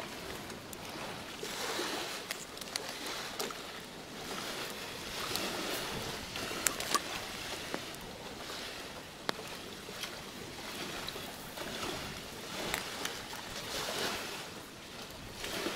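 Large banana leaves rustling and crinkling in swells as a leaf-wrapped parcel is handled and tied round with twine, with a few sharp crackles standing out.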